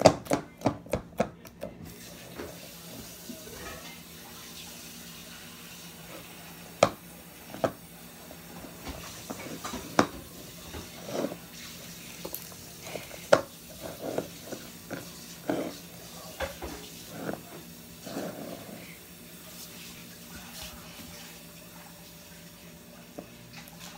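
Fingers poking, squeezing and stretching glittery slime with plastic beads mixed in: wet squelches and sharp popping clicks, a quick run of pokes in the first two seconds, then scattered squishes and pops.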